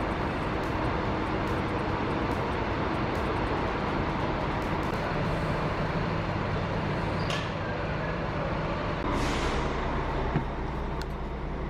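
Diesel engine of a Scania K400 double-decker coach idling steadily, with a brief hiss about nine seconds in.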